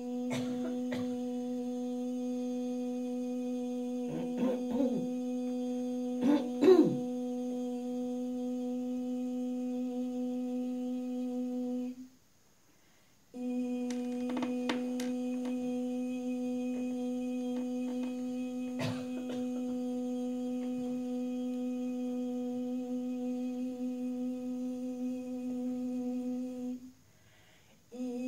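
A woman humming one long, steady low note, pausing for breath about twelve seconds in and again near the end. Around six seconds in a brief, louder wavering vocal sound rises over the hum.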